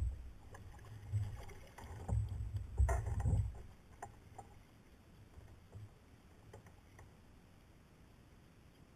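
Knocks and thumps carried through a Feelfree Lure 11.5 kayak's plastic hull as the seated angler shifts and handles his paddle. They are heaviest in the first three and a half seconds, then give way to a few scattered light clicks.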